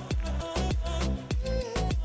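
Background music: an upbeat Latin/Afrobeat-style track with a steady, punchy kick drum and a deep bass line, about three or four beats a second.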